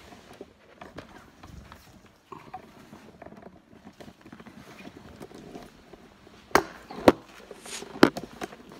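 Handling noise on a phone's microphone: scratching, rustling and small clicks as the phone on its tripod is pawed and bumped, with three sharp knocks about six and a half, seven and eight seconds in.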